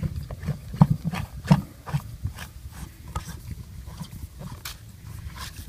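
PVC ball valve being turned by hand onto the tank's plastic threaded outlet fitting: plastic threads creaking and clicking in a quick irregular run, with low handling knocks, loudest in the first two seconds.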